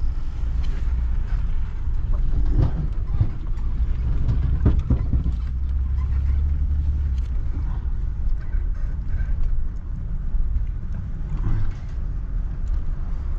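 Truck engine running while driving, a steady low rumble with a few scattered knocks and rattles.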